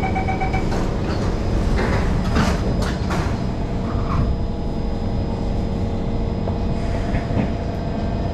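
Singapore MRT train running through a tunnel, heard from inside the carriage: a steady rumble of wheels on the rails with a faint motor hum, and a few sharp rattles about two to three seconds in.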